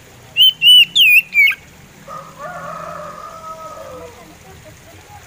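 Oriental magpie robin singing a short phrase of four loud, clear whistled notes that slide up and down, starting about half a second in. Then, fainter and lower, a rooster crows in the background for about two seconds, its note falling at the end.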